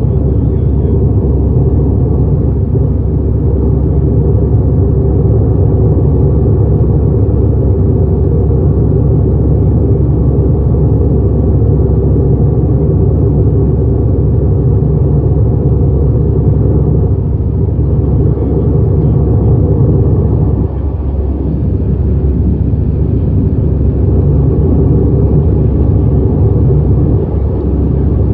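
Airbus A320 cabin noise during the climb after takeoff: jet engines and rushing air make a loud, steady low rumble, with a short drop in level about two-thirds of the way through.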